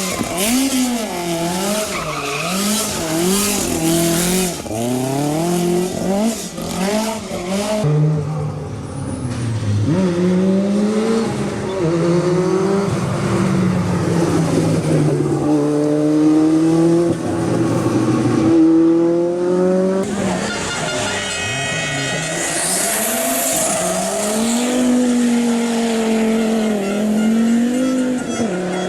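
Rally car engines revved hard and run through the gears. The pitch climbs and drops sharply at each shift, and it changes abruptly twice as the footage cuts to another car.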